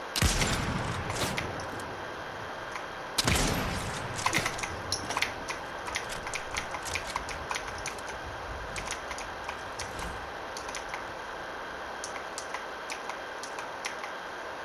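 Video game gunfire: two loud shots or blasts about three seconds apart, each trailing off, followed by a scatter of light, quick clicks.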